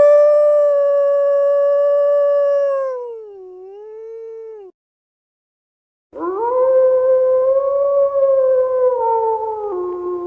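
Wolf howling: two long howls with a short pause between. The first holds one steady pitch, then dips and rises before cutting off about four and a half seconds in; the second starts about a second and a half later and steps down in pitch near the end.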